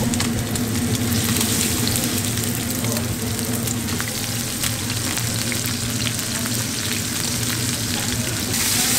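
Red snapper fillets sizzling in hot olive oil in pans over high heat, a steady frying hiss with fine crackles throughout as the seasoned side sears.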